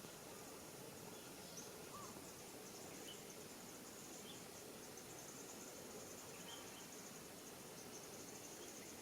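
Faint insects chirring: a steady, high, finely pulsing trill over quiet outdoor background noise, with a few faint short chirps.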